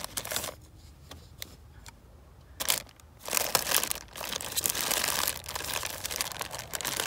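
Plastic bag crinkling and rustling as a plastic-wrapped coffee pot is worked out of a storage bin: a few scattered rustles at first, then steady crinkling from about halfway through.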